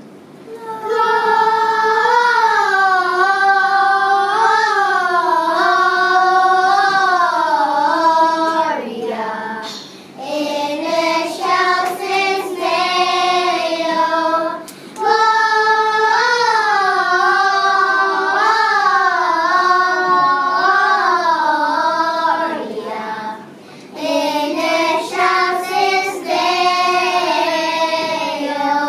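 A choir of young children singing a song, starting about a second in, in long phrases with short pauses between them.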